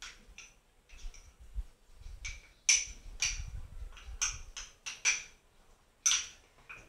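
Metal teaspoon clinking and scraping against a small glass bowl while stirring a flour-and-water paste for a sourdough starter: irregular sharp clicks, about two a second.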